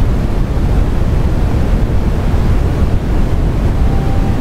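Loud, steady low rumbling noise, like wind buffeting a microphone, with a faint steady tone coming in near the end.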